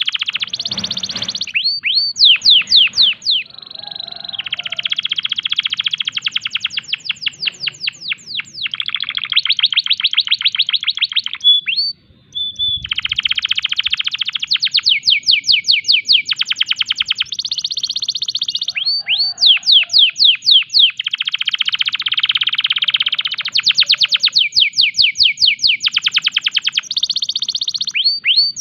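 Domestic canary in breeding condition singing a long song of rapid trills, runs of fast repeated sweeping notes changing from phrase to phrase, with one brief pause about twelve seconds in.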